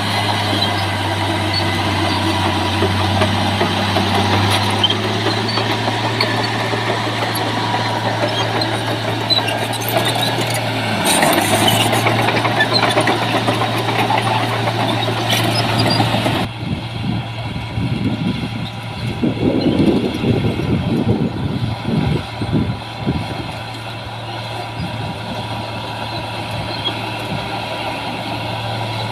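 Heavy diesel earthmoving machinery running with a steady engine drone. About sixteen seconds in the sound changes abruptly, and an uneven low rumble rises and falls for a few seconds.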